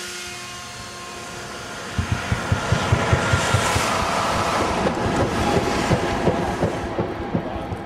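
Transrapid 09 maglev train passing on its elevated guideway: a swelling rush of air with a faint, slightly falling whine, loudest three to four seconds in and then fading. Irregular low thumps run through the loudest part.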